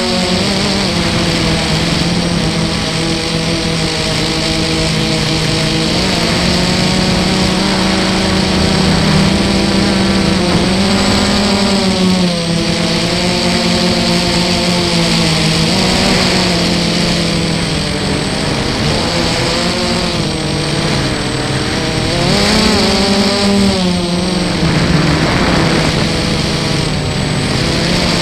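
Armattan FPV quadcopter's brushless motors and propellers, heard from the onboard camera: a loud, steady buzzing whine whose pitch rises and falls every few seconds as the throttle changes.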